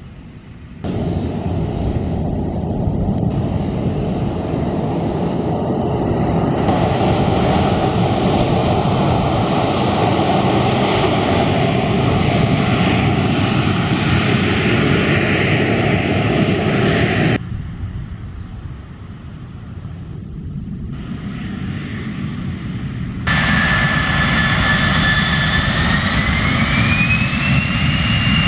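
Boeing 737 jet engines running at takeoff power, a loud steady roar that changes level suddenly several times as the footage cuts between takeoffs. In the last few seconds a whine rises in pitch and then holds steady as the engines spool up.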